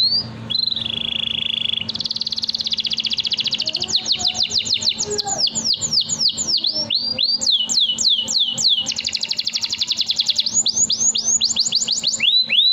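Domestic canary singing one long, unbroken song: fast rolling trills alternate with runs of quick downward-sweeping whistles at about four a second.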